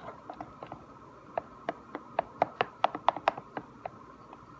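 Glue slime being stirred in a container with chopsticks, the sticks clicking and tapping irregularly against the sides, the taps coming quicker and louder in the middle.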